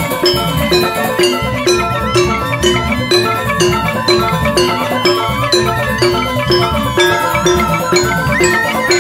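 Balinese gamelan playing joged dance music: interlocking struck keyed instruments and cymbals over kendang drums, with a steady beat of about three strokes a second. A suling bamboo flute wavers above the percussion near the end.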